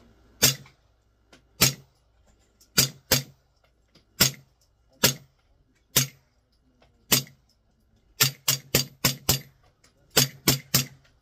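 A CZ Scorpion 3+ 9mm fitted with a SilencerCo Omega 9K suppressor, firing semi-automatically. There are eight shots about a second apart, then two quick strings of about six and five shots.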